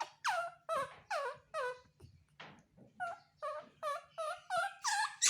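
Baby monkey giving a rapid series of short, high-pitched calls, each sliding down in pitch, about three a second with a brief pause partway through: distress calls for its mother's comfort.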